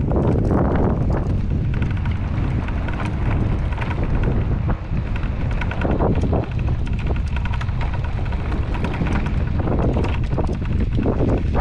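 Wind buffeting the microphone, with footsteps crunching on gravel.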